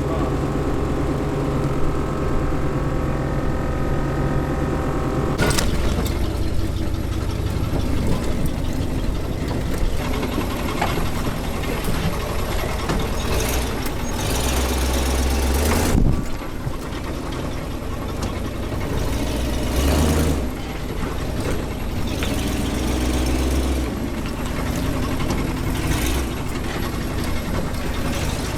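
Off-road vehicle engine, idling steadily for the first few seconds, then running under load as it crawls the trail, with several surges of revving.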